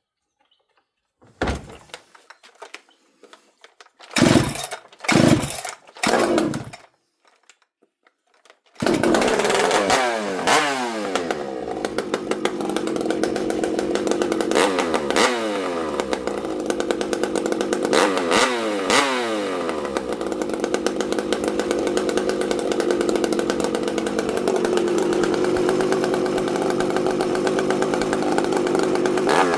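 A ported Husqvarna 394XP two-stroke chainsaw being pull-started after sitting unused for a year. A few pulls on the starter cord are followed by the saw catching about nine seconds in; it then keeps running, with the revs rising and falling several times.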